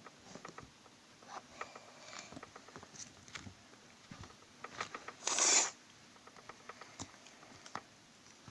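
Homemade slime being squeezed and poked by hand: scattered small clicks, crackles and sticky pops, with one louder hissing burst lasting about half a second, about five seconds in.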